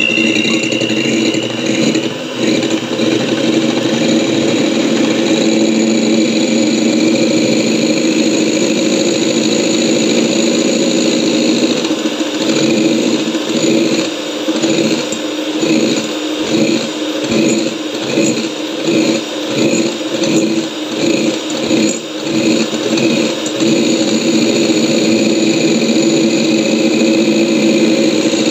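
Electric hand mixer running steadily, its beaters whipping egg whites in a glass bowl toward stiff peaks. The motor comes up to speed with a rising whine at the very start, and in the middle the sound pulses regularly, about one and a half times a second, for around ten seconds.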